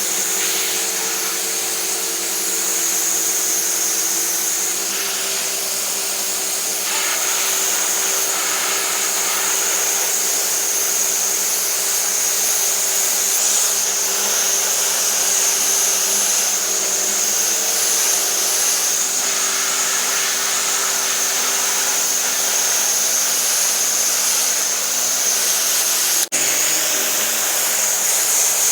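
Pressure washer running steadily with the constant hiss of water spraying from the nozzle. The sound drops out for an instant about 26 seconds in.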